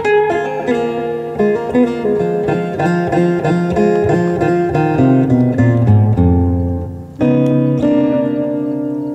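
Acoustic guitar playing a picked blues riff of single notes and low bass notes, with a brief break about seven seconds in.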